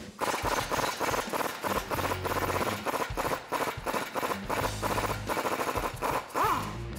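Pneumatic impact wrench hammering rapidly for about six seconds on a corroded exhaust flange bolt, working it loose. Near the end there is a brief whine that rises and falls in pitch.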